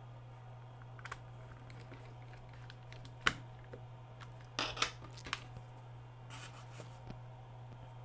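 Scattered small clicks and taps of hard plastic and metal as a small Phillips screwdriver and fingers work at the battery compartment of a Dish Network remote: a sharper click about three seconds in and a quick cluster of clicks a little later, over a faint steady low hum.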